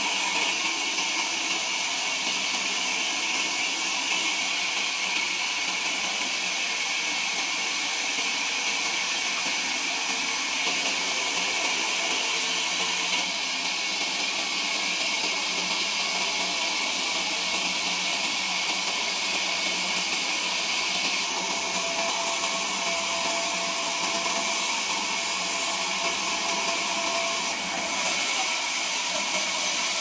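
Sawmill machinery running: a steady, hissing machine noise that changes character abruptly a few times.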